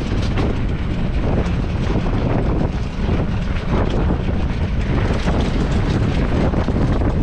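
Running noise of a hybrid pit bike on the move, with heavy wind buffeting on the microphone.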